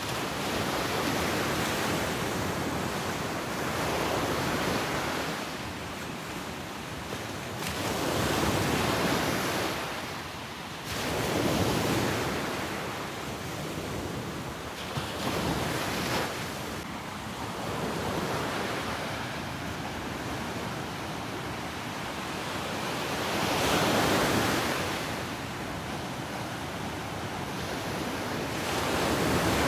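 Ocean waves breaking and washing up a beach, surging and receding in swells every few seconds, with a steady hiss of surf between them.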